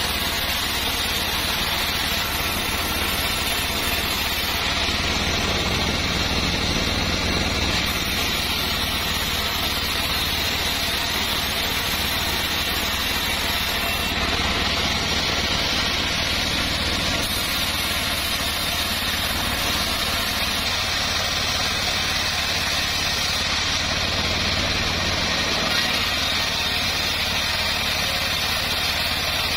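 Homemade band sawmill running steadily while its blade rips a board lengthwise, the drive motor droning underneath the hiss of the cut.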